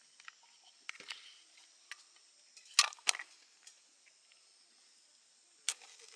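Scattered light clicks and knocks over a quiet background, with two sharper ones close together about three seconds in and another near the end.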